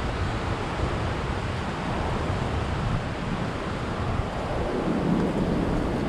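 Steady rush of the waterfall and creek below the footbridge, with wind buffeting the microphone in a gusty low rumble.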